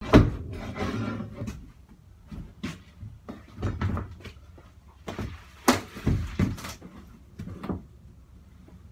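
Plywood subfloor being pried up off a school bus's steel floor with a long-handled bar: a hard knock at the start, a short scraping rattle, then irregular wooden knocks and creaks as the sheet is worked loose.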